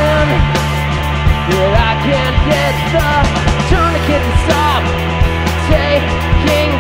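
Indie rock trio playing live at full volume: electric guitar, bass and drums, with frequent drum hits over a sustained bass line.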